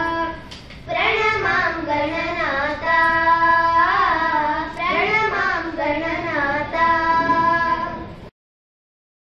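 A child singing a devotional prayer song in long held notes with wavering, ornamented pitch, pausing briefly for breath near the start. The singing cuts off suddenly about eight seconds in.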